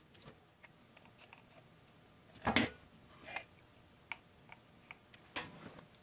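Scattered light clicks and knocks of metal parts handled on a workbench (glued steel pipe rings and aluminum angle), with one louder knock about two and a half seconds in.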